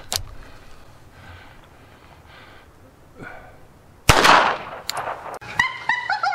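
A single shot from a Beretta 21A .22 Long Rifle pocket pistol about four seconds in, its report trailing off in an echo. Near the end a wavering, pitched sound effect begins.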